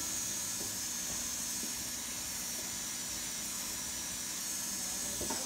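Jeweler's flexible-shaft rotary handpiece running steadily, its abrasive bit smoothing the outside of a freshly sized and soldered ring; a steady high hiss that cuts off near the end.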